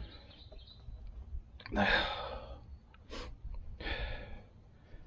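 A man breathing heavily: two long sighing exhales, one about two seconds in and one near four seconds, with a short sharp sniff or click between them. These are the heavy, shaky breaths of a hunter's excitement just after a shot.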